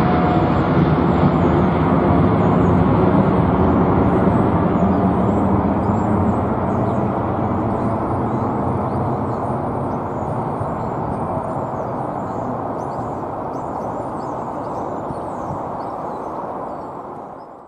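Boeing 777-300ER's twin GE90-115B turbofan engines at climb power after takeoff: a deep, steady jet rumble that slowly fades as the airliner climbs away.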